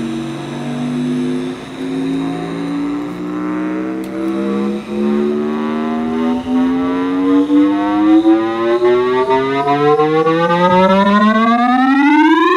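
A Sanyo M1660 mono cassette recorder's small built-in speaker playing a test tape at full volume. A low electronic tone glides upward in pitch, slowly at first and then faster, climbing steeply near the end.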